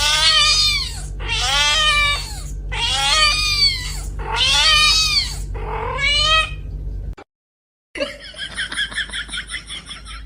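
Domestic cat meowing loudly, five long drawn-out calls in a row that each rise and fall in pitch. The calls stop about seven seconds in, and after a brief gap a fainter, fast pulsing sound follows.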